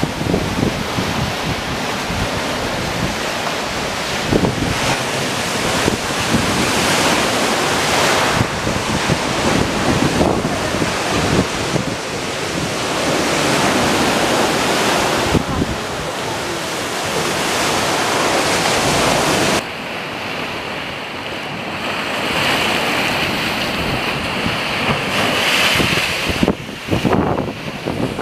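Wind buffeting the microphone over the rush of water: a loud, uneven rushing that swells and eases, changing abruptly about two-thirds of the way through to a thinner hiss.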